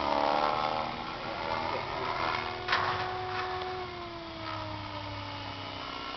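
T-Rex 550 electric RC helicopter flying overhead: motor and rotor whine shifting in pitch as it manoeuvres, sliding gradually lower over the last few seconds, with a brief knock about three seconds in.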